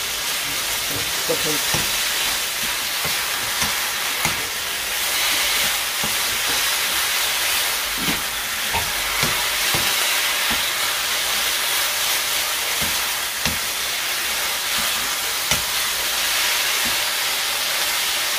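Japchae glass noodles and pork sizzling in a nonstick wok as a wooden spoon stirs them, a steady hiss with occasional knocks and scrapes of the spoon against the pan.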